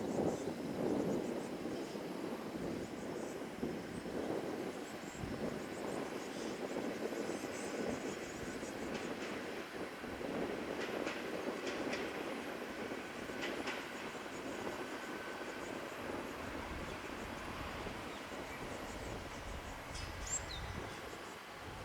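Diesel train running past on the Tsuyama Line track, a steady rumble, with a few wheel clicks over rail joints in the middle.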